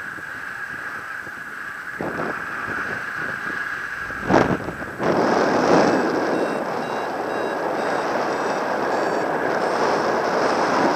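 Airflow rushing over the microphone in paraglider flight, much louder from about five seconds in after a brief gust-like burst. Short, evenly spaced beeps from a flight variometer signal lift.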